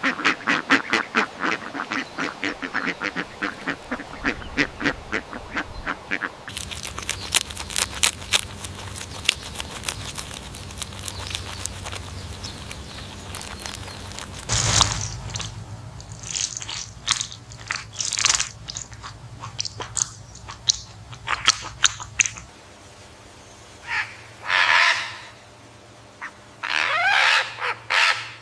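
Ducks quacking in fast, rapid-fire runs of about four calls a second, then in scattered single calls in the second half.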